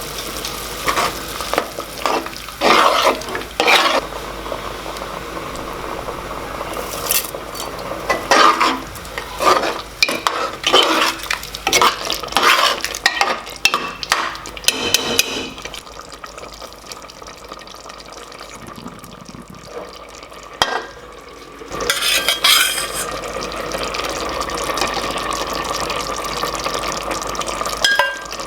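A spoon stirring and scraping against a cooking pot, with repeated metal clinks and a light sizzle of frying; the clinking thins out in the last few seconds, leaving a steadier hiss.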